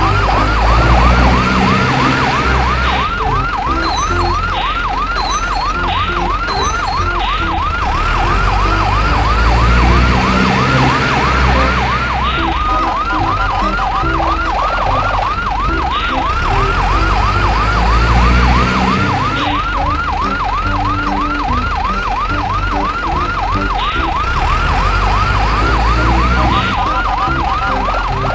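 Electronic yelp siren, a tone sweeping rapidly and evenly up and down, over background music with a steady bass beat.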